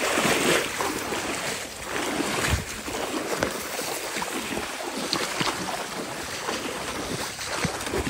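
Wading through shallow marsh water and tall grass: irregular sloshing of water and brushing of stems, with wind buffeting the microphone.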